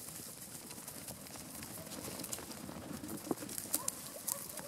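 Faint patter and rustle of a sheepdog and sheep running across grass, with a few sharp ticks in the second half and brief faint chirps.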